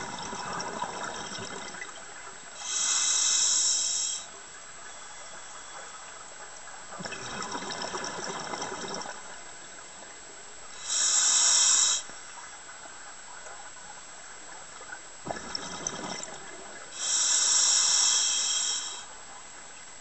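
A scuba diver breathing through a regulator underwater: three breath cycles, each a loud, steady hiss of air drawn through the demand valve and a lower, uneven rush of exhaled bubbles.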